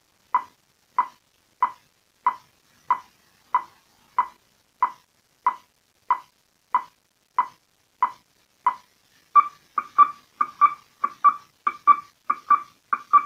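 Confidence tone from a WB400 carrier warning receiver's loudspeaker, fed over a telephone line: short, high beeps repeating evenly at about three every two seconds, the signal that the warning line is live. A little over nine seconds in, the beeps turn faster and slightly higher, coming in pairs.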